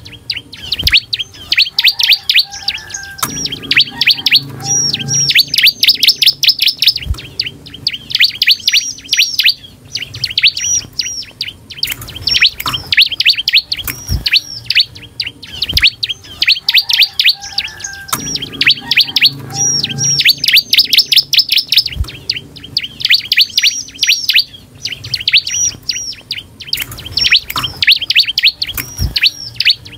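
Bar-winged prinia (ciblek) singing vigorously: rapid bursts of high, sharp chirping notes, several seconds each, repeated after short gaps. A few short knocks sound among them.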